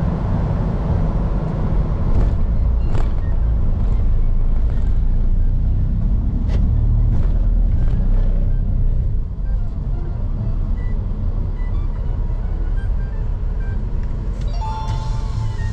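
Steady low rumble of a vehicle under way, with a handful of sharp knocks in the first eight seconds.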